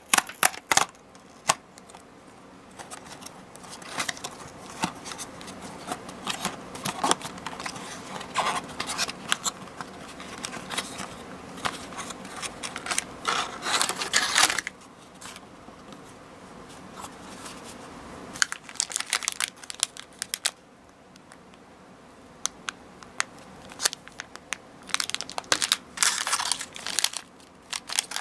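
Paperboard candy-toy box being opened and its plastic and foil wrappers handled: bursts of crinkling and rustling with small clicks and tearing, busiest about halfway through and again near the end, with quieter stretches between.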